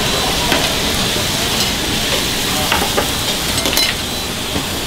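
Rice and toppings sizzling on hot iron plates: a steady frying hiss, with a few sharp clinks of metal tongs against the plates.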